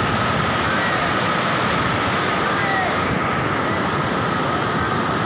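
Steady, loud rush of floodwater, with a faint steady whine running under it.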